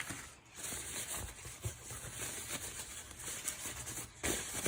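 Faint rustling of packaging being handled, with a few light knocks and clicks; one is a little louder about four seconds in.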